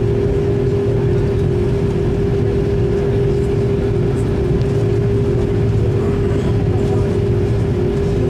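Steady cabin noise inside an Airbus A330 on the ground before takeoff, engines at idle: an even rumble and hiss with a constant hum, not changing in pitch or level.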